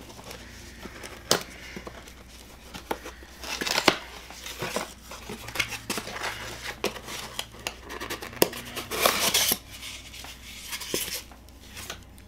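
Wrapping crinkling and tearing in several bursts, with scattered clicks and knocks, as a ceramic mug is unwrapped by hand.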